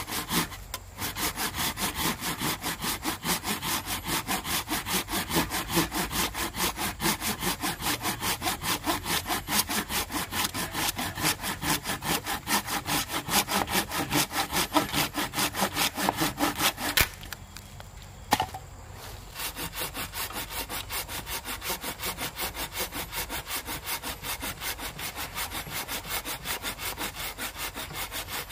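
Hand saw cutting through wood in quick, even back-and-forth strokes. The strokes pause briefly about two-thirds of the way through, then resume a little quieter.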